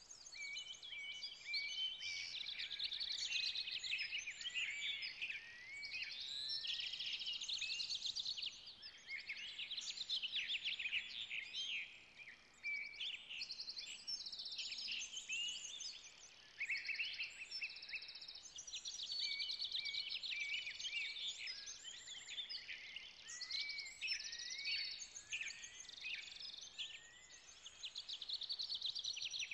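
Several songbirds singing at once: a dense, continuous chorus of overlapping chirps, trills and rising whistles.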